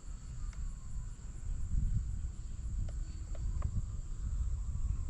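Wind buffeting the microphone in uneven low rumbles, over a steady high-pitched chirring of insects such as crickets. A few faint clicks come about three seconds in.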